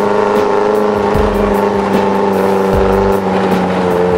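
Background music with a steady beat: regular light ticks over a sustained low drone and recurring bass notes.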